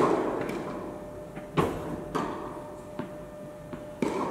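Tennis ball being struck and bouncing on an indoor court: the echo of a hard hit fades at the start, then about four sharp pops follow, each with a boomy hall echo. A faint steady hum runs underneath.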